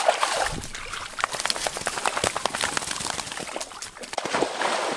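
Water splashing and sloshing: a quick, irregular run of small splashes and drips, easing off near the end.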